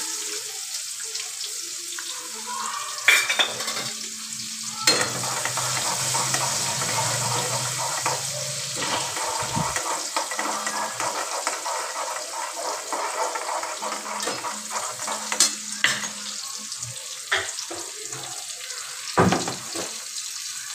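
Chopped onions sizzling in hot oil in a steel kadai, stirred with a steel ladle that scrapes through the frying and knocks against the pan a few times.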